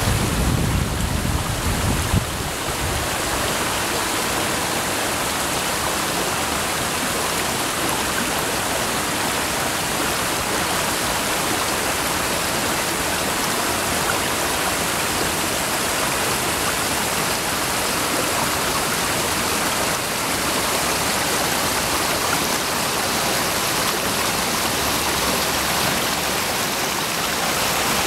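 Small stream swollen with spring run-off, rushing and splashing over low rock ledges in small cascades: a steady rush of water. A low rumble sits under it for the first two seconds or so.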